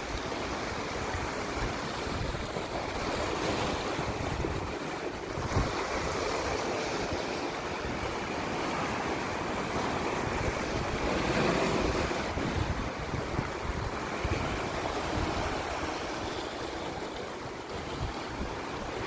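Small waves washing and breaking over low shoreline rocks, a steady seething wash that swells louder a little past the middle. Wind buffets the microphone underneath.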